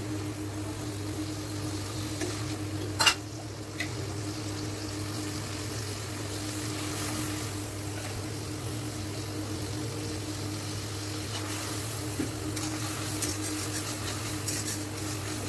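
Onion and spice paste sizzling in a metal karai over a gas flame while a metal spatula stirs and scrapes it, with one sharp clink of the spatula on the pan about three seconds in. A steady low hum runs underneath.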